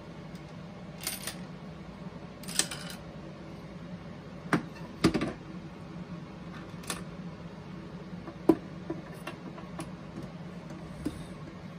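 Scattered sharp clicks and knocks of hands handling a plastic boombox case during reassembly, about seven in all, the loudest about two-thirds of the way through, over a steady low hum.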